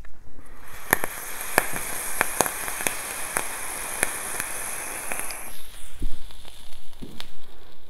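Vape atomizer coil firing during a long draw: a steady hiss with irregular crackling pops as the e-liquid boils off the coil, lasting about five seconds and cutting off sharply. A soft breathy exhale of vapour follows.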